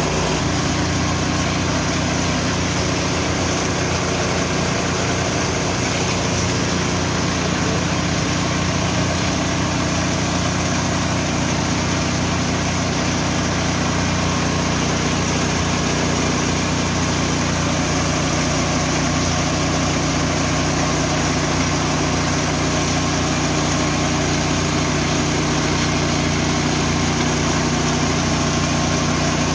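Richi KD 350 mini rice and corn mill running steadily on its petrol engine, a constant mechanical drone with no change in speed.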